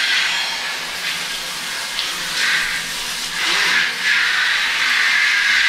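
Handheld shower head spraying water onto a road bike's frame and rear wheel: a steady hiss of spray, which gets louder about three and a half seconds in.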